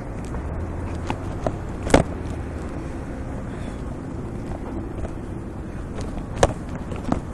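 Steady city street traffic noise, with a few sharp knocks, the loudest about two seconds in and again after six seconds.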